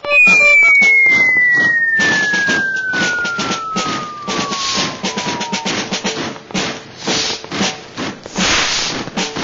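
A single whistle sliding steadily down in pitch for about five and a half seconds, over a fast patter of drum-like hits that carries on after the whistle stops.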